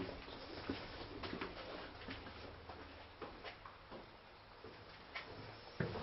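Faint, irregular footsteps and scuffs on a stone floor in a narrow stone passage, with a louder knock near the end.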